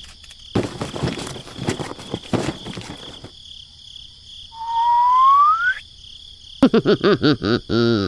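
Added comic sound effects: a run of quick knocks or taps for about three seconds, then a single rising whistle, then a fast series of bouncing, croak-like tones near the end.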